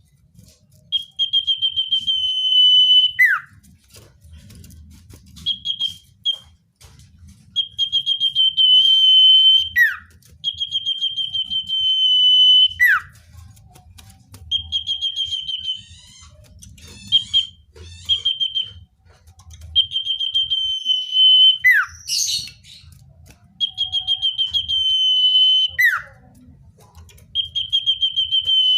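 Common iora song: repeated phrases of a long, steady, high whistle, most of them opened by a quick run of short notes and ended with a slur falling in pitch, plus a short warbling stretch about halfway through. A brief sharp noise cuts in once, a little past two-thirds of the way through.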